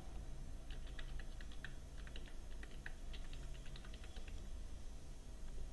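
Computer keyboard keys clicking in a quick, irregular run as an email address is typed, stopping about three and a half seconds in. A low steady hum lies underneath.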